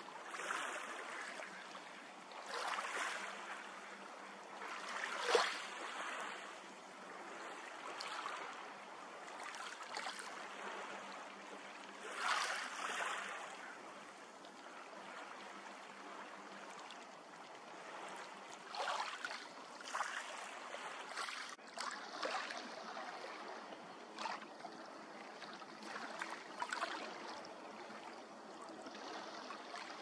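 Small waves lapping and splashing on open water in irregular swells every few seconds.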